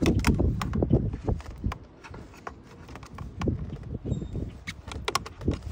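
Irregular light clicks and knocks from hand work on a skylight's metal head flashing and rubber gasket, over a low rumble.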